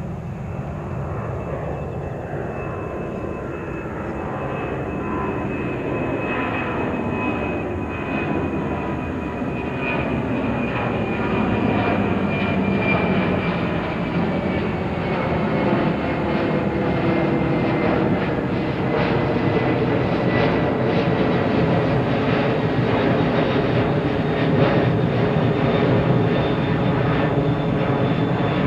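Boeing 767-300 airliner's twin turbofan engines at takeoff climb power, passing overhead: a steady, heavy jet noise that grows louder, with a rough crackle and a high whine that slowly slides down in pitch.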